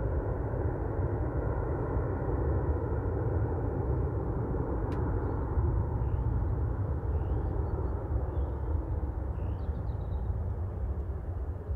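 Bombardier Global 6000 business jet climbing away after takeoff: the steady distant rumble of its twin Rolls-Royce BR710 turbofans, easing off slightly near the end. A single sharp click comes about five seconds in, and faint short chirps a few times after it.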